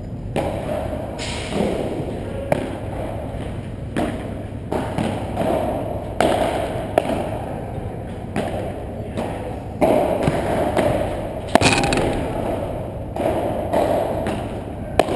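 Padel ball knocking off solid paddles and the court in an irregular series of sharp hits, about one a second, each ringing out in the echo of a large hall. The loudest hit comes near the end.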